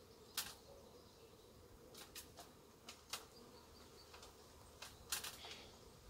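Honeybee swarm buzzing faintly as a steady low hum, with a scattering of sharp snaps, the loudest cluster near the end.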